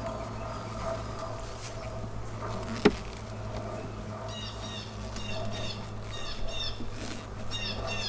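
A sharp click about three seconds in, as a metal hive tool knocks against the wooden frames of a nuc box, over a steady hum of honeybees. From about four seconds a songbird calls over and over in quick, high chirping phrases.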